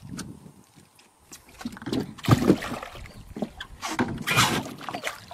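Water splashing in bursts, about two seconds in and again about four seconds in, as a hooked giant snakehead (toman) thrashes at the boat's side while being landed.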